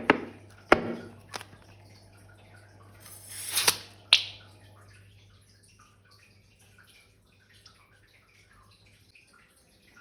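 Slime being worked out of a balloon: a few light taps, a wet squish that swells about three seconds in, and a sharp click a moment later. Near silence follows for the second half.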